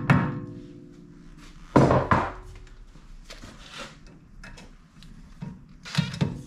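Metal knocks on a VW Golf Mk6 rear brake disc as its seized Torx retaining screw is worked free: a hammer tap that rings briefly at the start, a louder knock about two seconds in, then a few softer clanks and scrapes of the tools against the disc.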